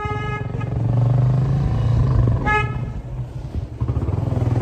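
Motorcycle engine running while riding in traffic, with a short vehicle-horn toot about two and a half seconds in and the tail of another horn blast right at the start.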